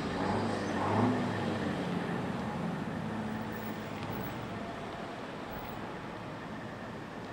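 Pickup trucks and an SUV rolling slowly past one after another, engines running at low speed. The sound is loudest about a second in, then gradually gets quieter.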